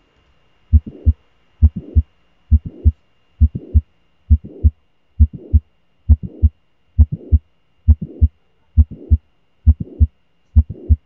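Recorded heart sounds of mitral valve prolapse, about twelve beats: after each first heart sound comes a click and then a murmur that stops at the second heart sound.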